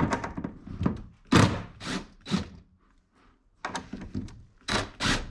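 Several separate thunks and clunks as the cover of an outdoor cable junction box is worked open, its screws being loosened with a hex-bit driver.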